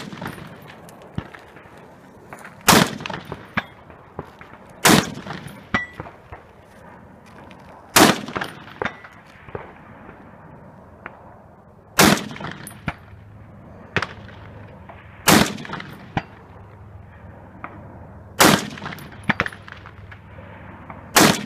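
Rifle fired deliberately from a prone position, about seven single shots two to four seconds apart, each followed by a short echo.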